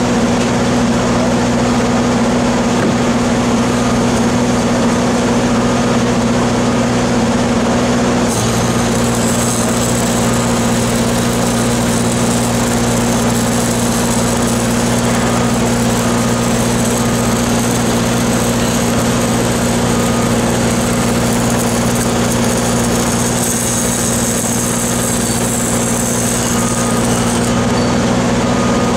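Engines running steadily, with the note shifting slightly about eight seconds in, under the crackle of stick (SMAW) arc welding on the steel pipe joint. The welding crackle stops shortly before the end.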